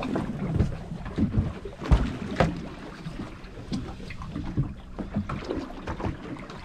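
Wind buffeting the microphone and water slapping against a boat's hull, with scattered knocks and one loud thump about two seconds in.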